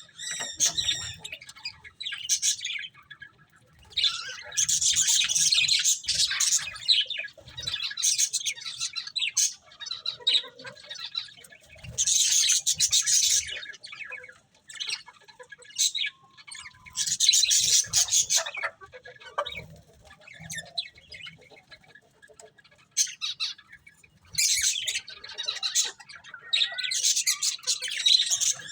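Pet budgerigars chattering and chirping, with harsher squawks, in bursts a second or two long separated by short pauses.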